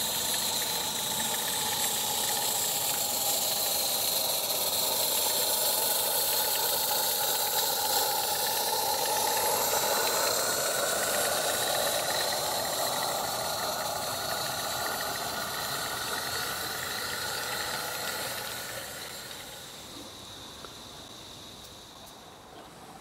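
Live-steam 16mm-scale Single Fairlie model locomotive, driven by an oscillating-cylinder steam engine, running past with its coaches: a steady hiss of steam with wavering tones above it, fading away over the last few seconds.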